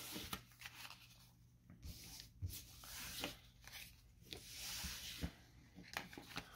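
Magic: The Gathering cards being gathered up off a table and squared into a stack: faint sliding and rustling swishes with a few light taps.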